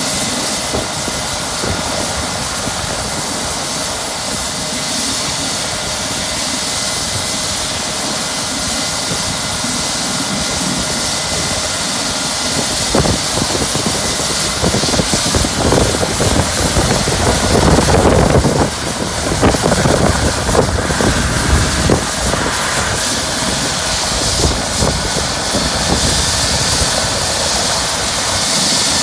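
Twin-turbine Eurocopter EC135 medical helicopter running on the ground, with a steady turbine whine over the rotor noise. Irregular low buffeting swells in the middle stretch, then eases off.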